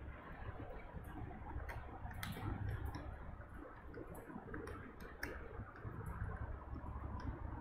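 Scattered light clicks and taps at irregular intervals, over a low steady hum.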